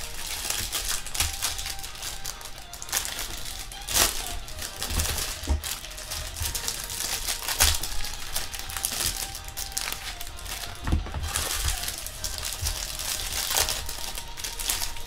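Crinkling and rustling of foil trading-card pack wrappers and cards being handled, with many small irregular crackles, over music playing in the background.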